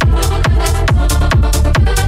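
Electronic dance music from a live DJ mix in an electro/tek style: a fast, steady, hard kick-drum beat under a layered synth part.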